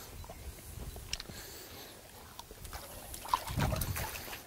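Faint splashing and trickling of shallow marsh water as hands work in it, with a few small clicks and knocks.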